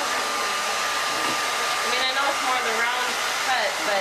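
Handheld hair dryer blowing steadily: a rushing of air with a thin, steady high whine from its motor.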